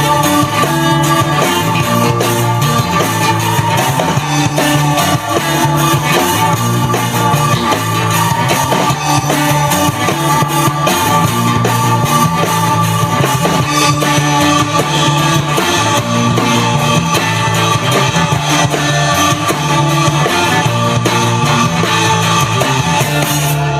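Rock band playing, with guitar and drum kit over a repeating bass line.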